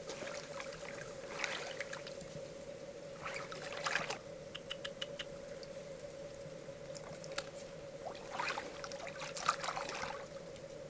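Water splashing and trickling in several bursts, with a quick run of small sharp clicks about midway, over a steady faint hum.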